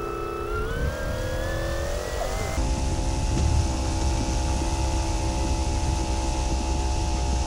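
RC model plane's electric motor and propeller spinning up with a rising whine over the first couple of seconds, then running at a steady, even whine from about two and a half seconds in as the plane rolls down the runway for takeoff.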